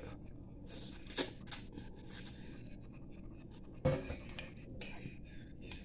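Quiet eating of ramen noodles: chewing, with scattered clicks and scrapes of chopsticks against a glass bowl, the sharpest clicks about a second in and just before four seconds.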